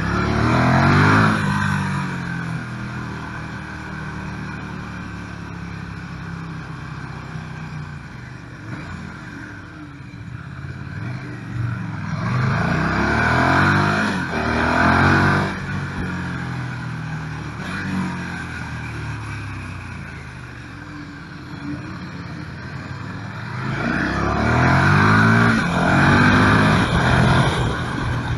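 KTM 1290 Super Duke R's V-twin engine heard from onboard, accelerating hard three times: near the start, around the middle and near the end, the revs climbing and dropping back. In between it runs lower and steadier off the throttle.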